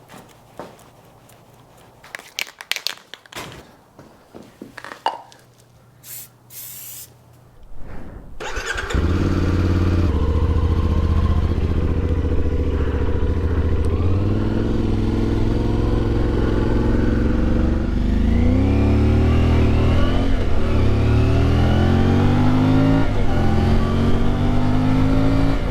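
A few clicks and knocks, then the CFMoto Ibex 450's parallel-twin engine starts about eight seconds in and runs steadily. In the second half its pitch repeatedly rises and falls with light throttle blips.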